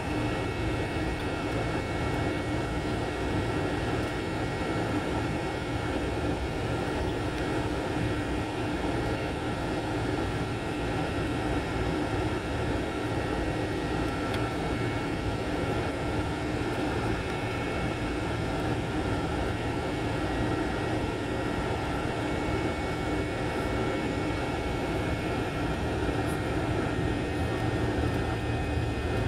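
Airliner cabin noise heard from inside the cabin during the flight: a steady drone of engines and rushing air, with a few faint whining tones held throughout.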